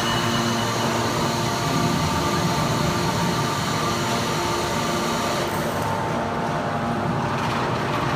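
Hydraulic scrap metal baler running: a steady machine hum with a constant noisy rush, the higher hiss thinning out about six seconds in.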